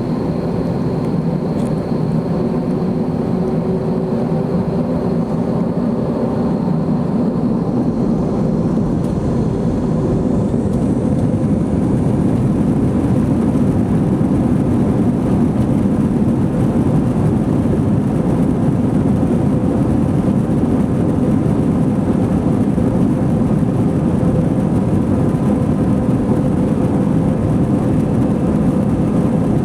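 Steady engine and airflow noise of an Airbus A321-213 with CFM56 engines, heard from inside the passenger cabin. It grows slightly louder about ten seconds in, while a faint high whine fades away.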